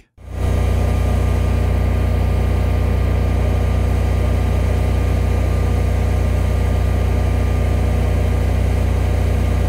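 A competing 20 kW home standby generator running steadily under load at 3,600 RPM, heard from about 7 metres: a constant engine drone with a strong low hum, starting just after the beginning.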